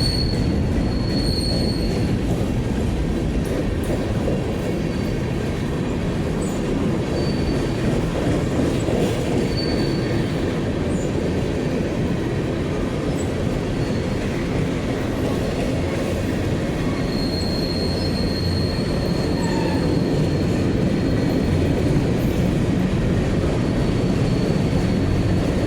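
Freight cars of a BNSF manifest train rolling past: a steady rumble of wheels on rail, with brief high-pitched wheel squeals now and then, the longest about two-thirds of the way through.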